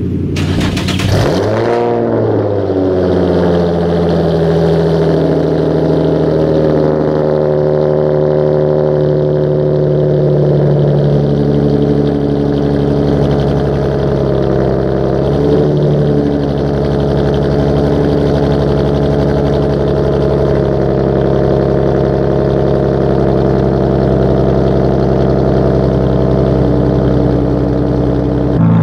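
Infiniti G35's 3.5-litre V6 with a custom exhaust cold-starting: it catches about a second in with a short rev flare that falls in pitch, then settles into a steady idle.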